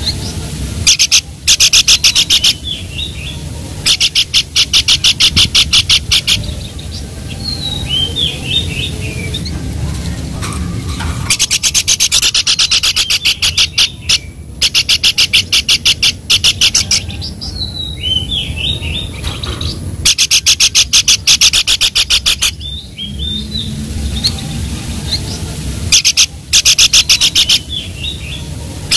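Babbler (pelanduk) song: bouts of fast rattling notes, about ten a second, lasting one to several seconds, alternating with short high whistled phrases, over a steady low rumble.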